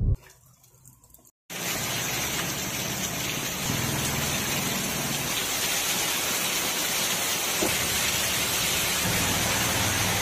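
Heavy rain falling steadily, starting suddenly about a second and a half in after a moment of quiet.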